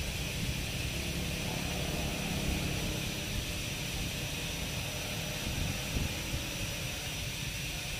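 Electric rotary carving handpiece running steadily with a high whine and hiss as its burr grinds detail into a small wooden figurine.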